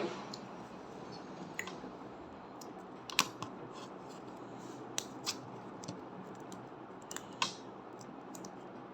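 Opening a plastic-wrapped gummy candy bar: a few sharp crinkles and clicks of the wrapper, a second or two apart, over a steady low hiss.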